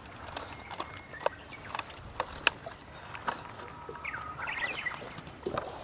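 Birds calling: a couple of held whistled notes and a quick run of chirps a little past the middle, over scattered sharp ticks and taps.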